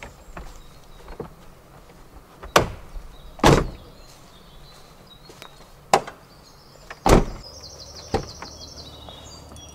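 Land Rover Defender doors being shut: several solid metal thunks, the loudest about three and a half seconds in and just after seven seconds. A brief high chirping trill comes near the end.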